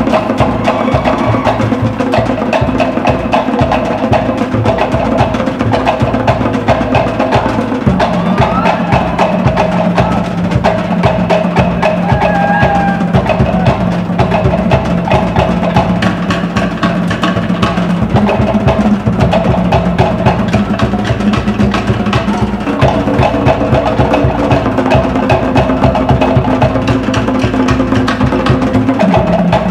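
Cook Islands drum ensemble playing a fast, driving rhythm on wooden slit drums (pate) and skin drums (pa'u), with dense, rapid strokes that never let up.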